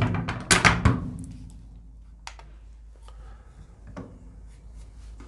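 Savage Axis bolt-action rifle being handled: a quick run of sharp metallic clacks in the first second as the bolt is worked to recock it for the next trigger-pull reading, then a few light clicks and taps as the trigger gauge is set on the trigger.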